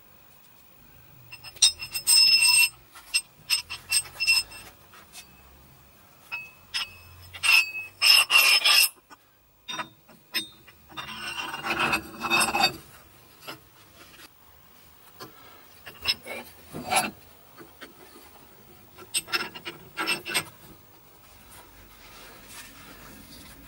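Steel parts of a wheel bearing tool set clinking, ringing and scraping in irregular bursts as they are fitted together against the hub. The loudest ringing clanks come about two and eight seconds in, with a longer scrape around twelve seconds.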